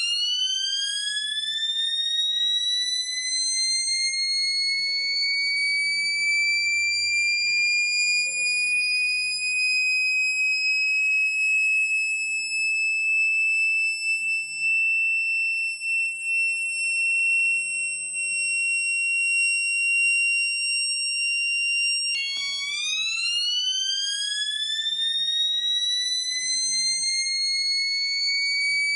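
Microcontroller-driven electronic siren imitating a factory siren wind-up: a single tone rises quickly, then slowly levels off at a high pitch and holds. About 22 seconds in it drops abruptly back to a low pitch and starts climbing again.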